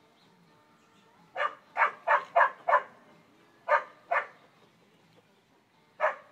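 A dog barking in short, sharp barks: a quick run of five, then two more, then a single bark near the end.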